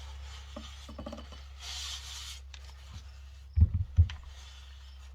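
Parts of a tractor's final drive being handled during disassembly: light rubbing and scraping, a short hissing swipe about two seconds in, then two dull thuds a little past halfway.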